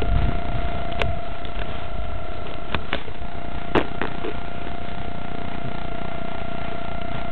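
Handling and wind noise on a small onboard camera mounted on a foam RC plane resting on the ground: a low rumble with a steady thin whine, and a few sharp clicks as the airframe is touched, about a second in, twice near three seconds, and once near four seconds.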